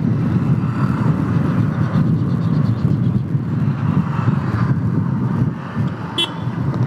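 TVS Ntorq 125 scooter's single-cylinder engine running at riding speed, with wind and road noise, easing slightly after about five seconds. A brief high-pitched tone sounds about six seconds in.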